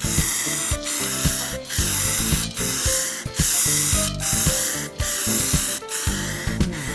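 Aerosol spray can of car paint hissing in passes, broken by short pauses about once a second, over background music.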